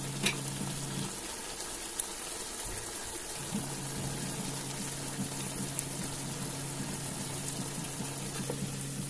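Chicken simmering and sizzling in a pot of tomato and spices, wet and bubbling as the meat gives off its juices, with a few light clicks. A steady low hum sits behind it and drops out for a couple of seconds near the start.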